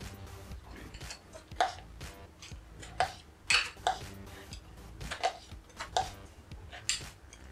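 An irregular series of short clicks and taps, several within a few seconds, from handling the paint spinner that holds a freshly poured coaster tile. Faint background music runs underneath.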